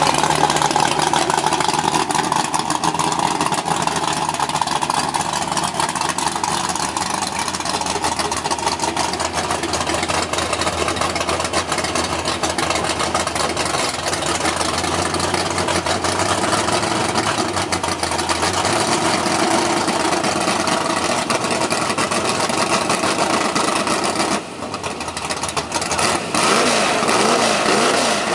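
Car engines running loud and continuously at a drag-racing track, idling and revving. About 24 s in the sound drops off briefly, then engines rev again, with pitch sweeping up and down near the end.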